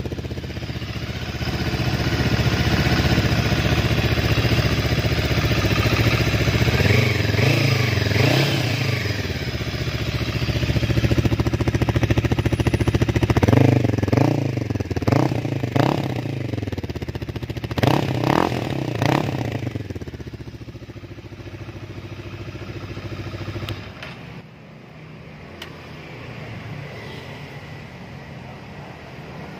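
SM Sport FE3's 400 cc two-cylinder DOHC engine running through its twin left and right exhausts, sounding fairly fierce. It idles steadily, is revved in several throttle blips that rise and fall through the middle, then its low running sound drops away sharply near the end.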